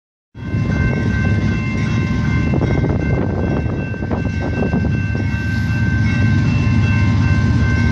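Railroad crossing warning bells ringing continuously over the low rumble of CP 9718, an approaching diesel freight locomotive.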